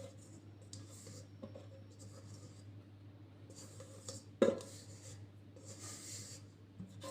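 Hands handling floured bread dough on a work surface: soft, irregular rubbing and scraping, with one sharp knock about four and a half seconds in. A steady low hum runs underneath.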